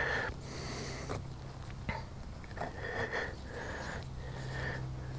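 Small knife cutting into grapefruit rind, giving a few faint clicks, with a sniff through the nose about half a second in.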